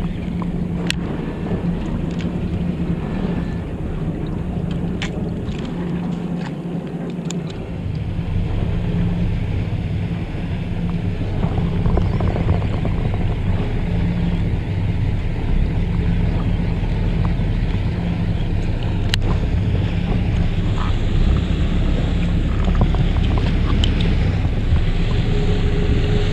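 Fishing boat's engine running steadily with a low hum, under wind and water noise. About eight seconds in, its low rumble grows louder and stays up, with a few light clicks here and there.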